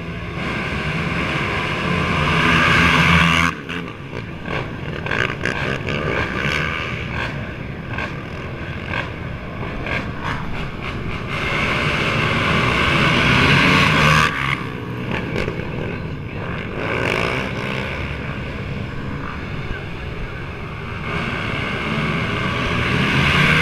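A field of racing ATV engines revving, the sound swelling in pitch and loudness over a few seconds and dropping off sharply, three times over.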